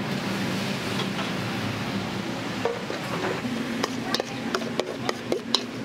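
Metal ladle clanking against a wok, several quick strikes a second, starting a little under three seconds in, over a steady rushing hiss of the kitchen.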